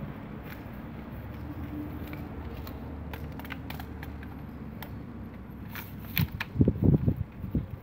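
Handling noise from a DeWalt rotary hammer and its dust-extraction attachment while a drill bit is fitted: scattered plastic and metal clicks over a steady low rumble, then a cluster of loud low knocks near the end.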